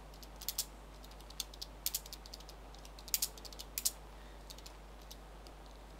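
Typing on a computer keyboard: irregular keystrokes, some single and some in quick little runs, with short pauses between.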